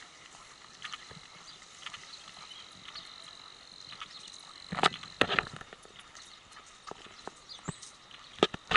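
Irregular clopping steps on a hard surface, with the loudest cluster of knocks about five seconds in.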